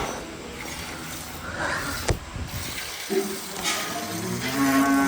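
Cow mooing: one long low call starting about three seconds in, with a single sharp click shortly before it.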